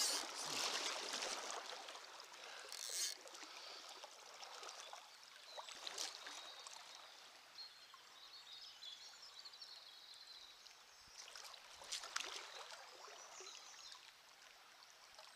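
Faint river water running over stones, a steady hiss that is louder for the first couple of seconds and then eases off, with a few brief handling noises.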